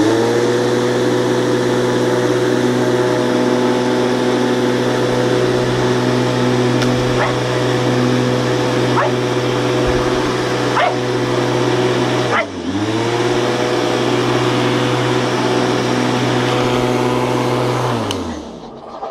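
A small motor running at one steady pitch. It spins up suddenly, dips and recovers about twelve seconds in, and winds down near the end.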